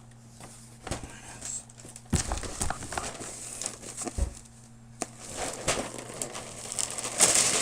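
Packaging being handled and pulled open: crinkling and rustling with scattered knocks, the loudest rustle near the end.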